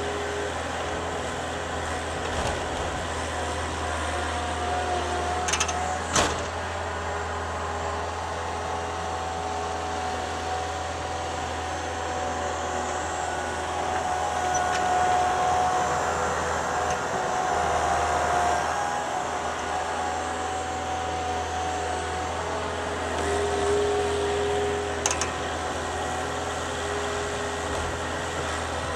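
Thomas 153 skid steer running steadily, its engine note shifting in pitch and swelling louder twice as it works, with a sharp knock about six seconds in and another near the end.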